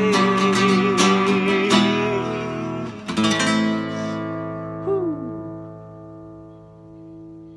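The closing bars of a psalm song on acoustic guitar: strummed chords under a held, wavering sung note, then a final strum about three seconds in that rings out and fades away.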